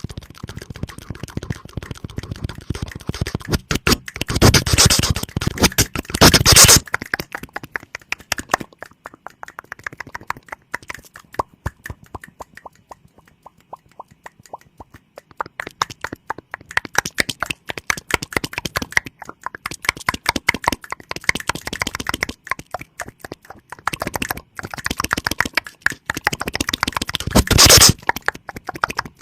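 ASMR mouth sounds: rapid clicks and pops made with the mouth, many per second. There are two louder, denser spells, about four to seven seconds in and near the end, with a quieter stretch between them.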